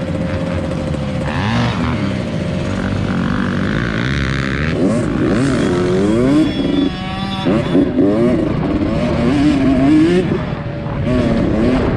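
Dirt bike engine revving as it is ridden around a motocross track, its pitch climbing and falling again and again with throttle and gear changes, with a short drop in the engine note partway through.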